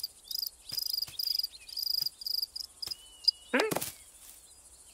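Crickets chirping in repeated short high trills, field ambience, with a few faint clicks and a short pitched vocal sound about three and a half seconds in.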